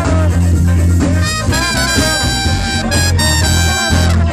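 Live band playing with electric guitar, a heavy bass line, saxophone and trumpet; the horns hold long notes from about a second and a half in.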